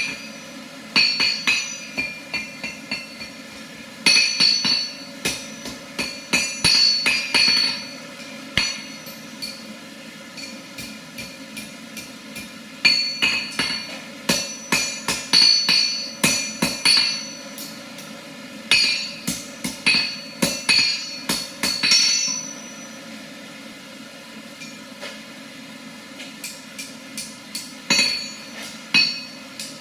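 Blacksmith's hammer striking steel on an anvil, the anvil ringing with each blow, in runs of quick strokes broken by short pauses, over a steady low hum.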